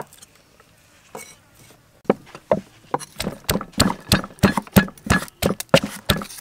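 Wooden pestle pounding red chilies in a mortar: a steady run of dull thuds that starts about two seconds in and quickens to about four strokes a second.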